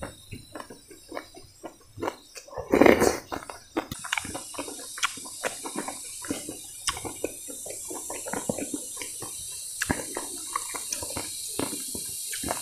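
Close-up eating sounds: a loud slurp of soup from a spoon about three seconds in, then wet chewing and lip smacks. A steady high hiss sets in about four seconds in.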